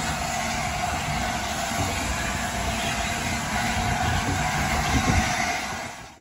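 Steady hiss and low rumble of a steam train standing at a station platform. It cuts off suddenly just before the end.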